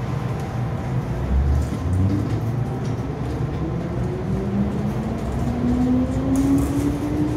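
MTR M-Train starting off from a station platform: its traction motors give a whine that climbs steadily in pitch as the train gathers speed, over the rumble of the car.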